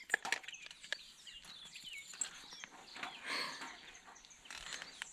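Birds chirping in short, quick notes, with scattered clicks and rustles of movement.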